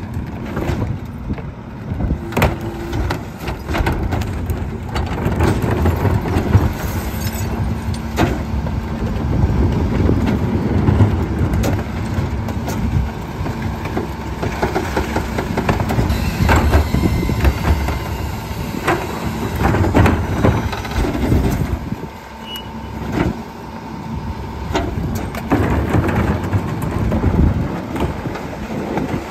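McNeilus rear-loader garbage truck at work: its diesel engine and hydraulics run with a swelling rumble as the packer compacts a heavy load of recycling. Carts bang against the hopper and the tipper, and bottles and cans clatter in throughout.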